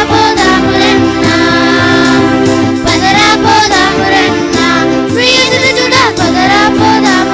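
A Christmas song: a sung melody over steady held instrumental backing.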